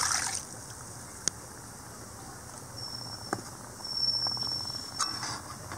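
Rinse water from a stainless-steel mixer-grinder jar splashing into an iron kadai of kadappa, stopping within the first half second. Then a few sharp clicks and light knocks of steel utensils on the pan, and a thin high steady tone in two stretches over the second half.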